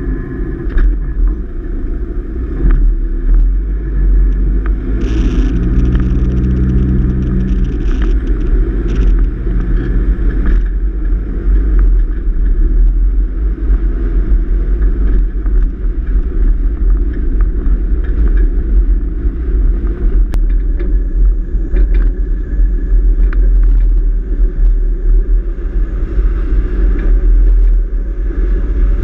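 A vehicle driving, heard through a camera mounted low on its front: a steady, heavy low rumble of engine and road noise. About five seconds in, a steadier engine tone comes through for several seconds.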